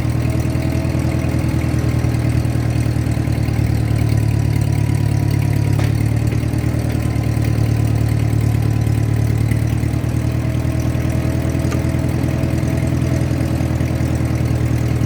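Ford 8N tractor's four-cylinder gasoline engine running steadily, a little louder for a couple of seconds about four seconds in.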